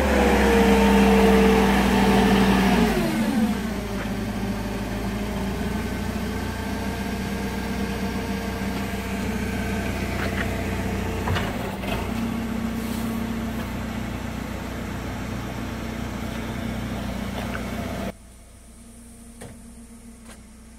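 Engine of a Toyota 25 propane forklift running at raised revs for about three seconds, then settling to a steady lower idle while the truck moves. The sound drops away abruptly about eighteen seconds in.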